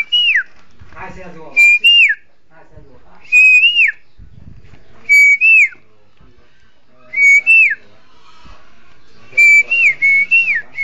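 A loud, high whistled call repeated about every two seconds: each call is a short steady note that lifts briefly and then drops in a quick downward glide, with three calls close together near the end.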